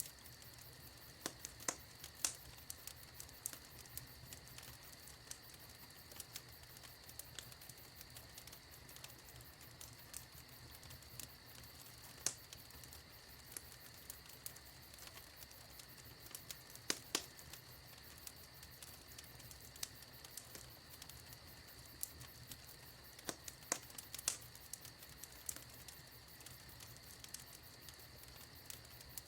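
Fire in a fireplace crackling: a steady faint hiss with sharp pops at irregular intervals, a few of them much louder than the rest.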